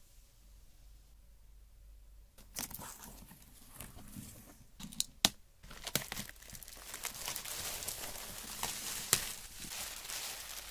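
Plastic and cardboard packaging of a CPU cooler being opened by hand, crinkling and tearing with a few sharp clicks. It starts about two and a half seconds in.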